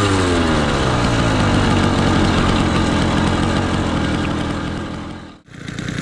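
Firestorm Zeda 80 two-stroke engine on a motorized bicycle, running while the bike is ridden; its note falls in pitch over the first second or so, then holds steady before fading out about five seconds in. After a short break, the engine idles near the end.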